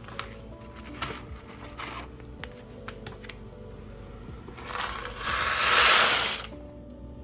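Soft background music under scraping and rustling noise with a few light clicks; the noise swells into a loud rush about five seconds in and stops about a second and a half later.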